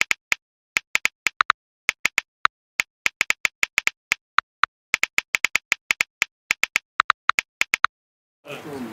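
Key-tap clicks of a smartphone's on-screen keyboard as a message is typed: a quick, uneven run of short sharp clicks, several a second, with dead silence between them, stopping near the end.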